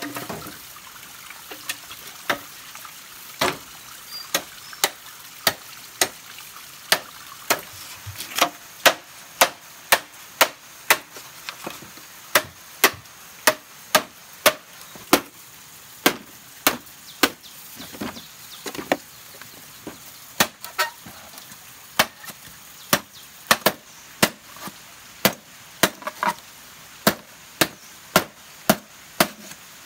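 Steady chopping on bamboo with a blade: sharp, evenly paced blows, about two a second.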